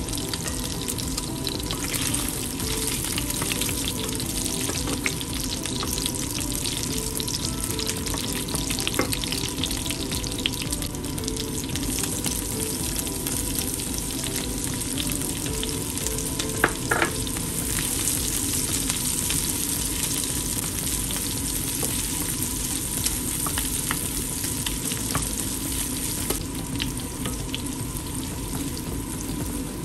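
Pork pieces sizzling steadily as they fry in oil in a non-stick pan, with a few light clicks of the stirring utensils against the pan.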